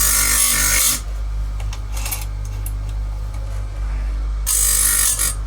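Grinding wheel of an electric chain sharpener grinding the cutters of a Stihl MS181 saw chain: two passes of about a second each, one at the start and one near the end, with the grinder motor humming steadily in between.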